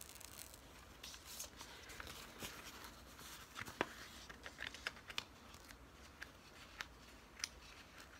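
Faint crinkling and scattered small sharp ticks of a diamond-painting canvas being handled as its plastic cover film is peeled back. The sharpest tick comes nearly four seconds in.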